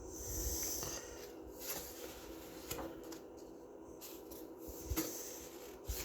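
Faint handling of paper pages: a short swish of a page being moved in the first second, then a few light taps and rustles.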